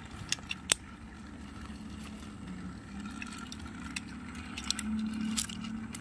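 Small plastic clicks and scrapes of AA batteries being fitted into a toy train engine's battery compartment, a few sharp clicks in the first second and more near the end. Under them runs a faint steady hum from a battery-powered toy train's small motor.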